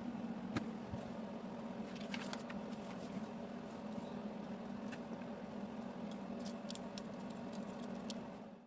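Plastic Lego bricks of a small catapult model clicking faintly as hands fit and handle the pieces: a few scattered clicks over a steady background hum.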